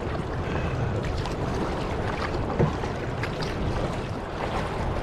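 Water splashing and rushing around a canoe being paddled against incoming waves, with wind noise on the microphone and a brief knock a little over halfway through.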